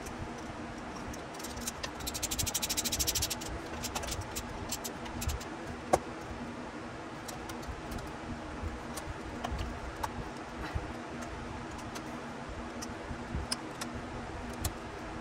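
A ratchet clicking in a quick run for about a second and a half while spark plugs are fitted in a 1.5JZ engine, then scattered light clicks and taps of tools and parts, with one sharp click about six seconds in, over a low steady hum.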